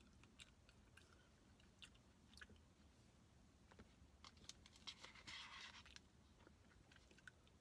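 Faint close-up eating sounds: soft chewing with scattered small mouth clicks. A plastic spoon scrapes through the paper smoothie bowl for about a second, some two-thirds of the way in.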